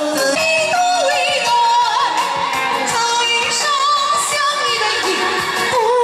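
A singer performing a slow, melodic song over backing music through a stage PA system. The voice holds long notes with a wavering vibrato and slides between pitches.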